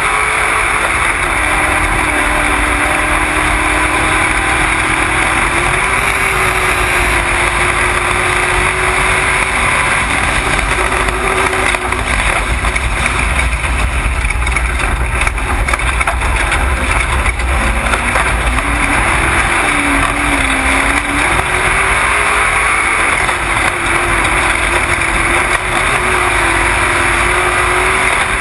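Off-road race vehicle's engine running under way, heard from an onboard camera, under a dense rushing rumble of wind and drivetrain noise. The engine note wanders gently up and down with no big revs, dipping and recovering about two-thirds of the way through.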